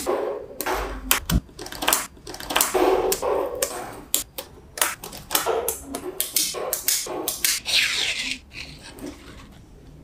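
Small metal magnetic balls clicking and clacking as strips of them are snapped together and pressed into place, in quick irregular clicks with short rattles as rows slide and settle.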